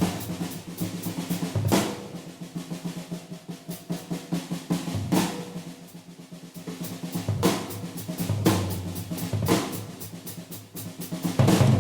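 Vintage 1970 Ludwig three-ply drum kit played as a solo: fast rolls and fills on snare and toms over bass drum, with cymbal crashes every couple of seconds and a loud flurry at the end.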